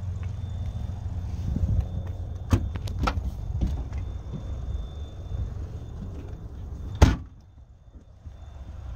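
The trunk lid of a 2018 Nissan Altima SR: a few sharp clicks and knocks as it is opened, then it is shut with one loud thud about seven seconds in. A steady low rumble runs underneath and drops away after the slam.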